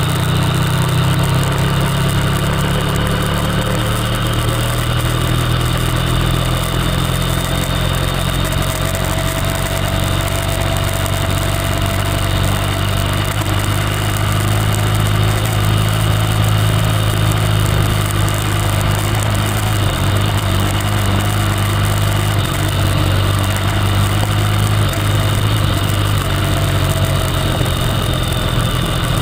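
Motorcycle engine running at a steady, even pace while the bike rides along a dirt track, heard from a camera mounted on the bike.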